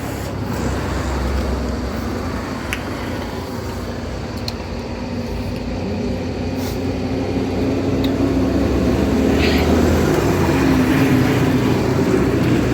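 A steady low engine-like rumble, as of a motor vehicle running, growing louder in the second half.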